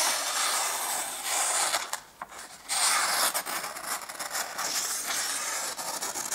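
A freshly sharpened knife push-cutting through a sheet of printer paper, with the dry rasp of the blade parting the paper and the sheet rustling. It comes in two long drawn-out cuts with a short break about two seconds in. This is a push cut with no sawing, the test of a very sharp edge.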